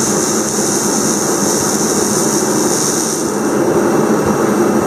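A steady machine running: a loud, even rush of noise with a high hiss that eases about three seconds in.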